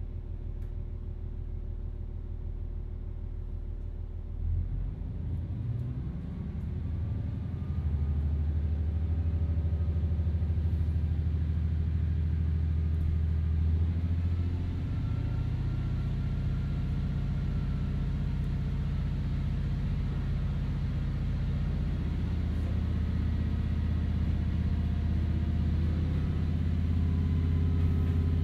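Diesel engine and running gear of a KiHa 40 railcar heard from inside the car: running low at first, throttling up about four seconds in and pulling hard from about eight seconds as the train gathers speed. The engine note shifts around the middle and then holds steady.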